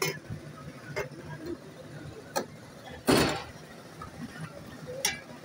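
Stainless-steel lassi pot and mug clinking as lassi is poured and handled: a few sharp metallic clicks, and about three seconds in one louder, brief noisy clatter.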